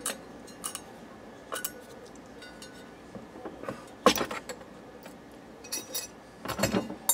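Scattered small metallic clicks and clinks of pliers working at the centre spindle of a Perpetuum Ebner 99V record changer, then a louder clank about four seconds in as the platter is lifted off, followed by a few more clicks.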